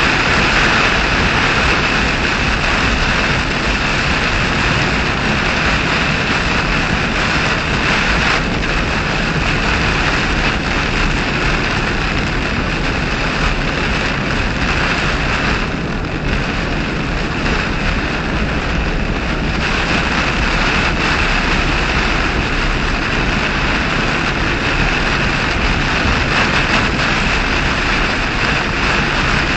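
Heavy thunderstorm rain and wind pelting a moving car's windshield and body, heard from inside the cabin, mixed with tyre noise on the wet road as a loud, steady rush. The hiss thins a little for a few seconds around sixteen seconds in.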